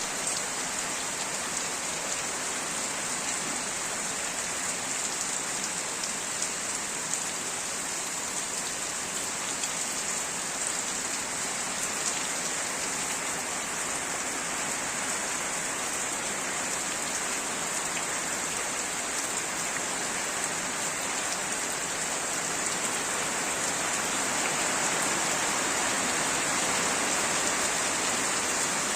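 Steady heavy rain falling on surfaces, an even hiss that grows slightly louder in the last few seconds.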